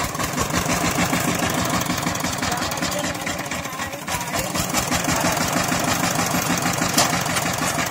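Single-cylinder diesel engine of a two-wheel power tiller running with a steady, rapid firing beat. A single sharp click sounds near the end.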